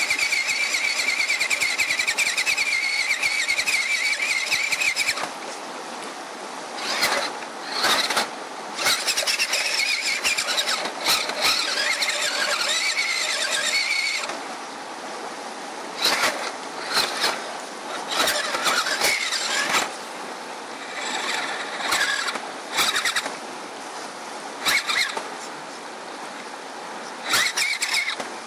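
Electric drive motor and geartrain of a Radio Shack Off Roader RC crawler converted to hobby-grade parts, whining under load as it crawls up a boulder. It runs steadily for about five seconds, then comes in short throttle bursts of a second or two.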